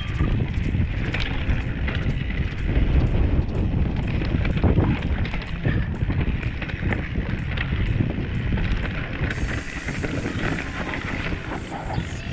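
Wind rushing over the microphone, with a Specialized Stumpjumper Alloy mountain bike rattling and clattering as it descends a rough downhill trail at speed: tyres on dirt and rock, chain and suspension knocking.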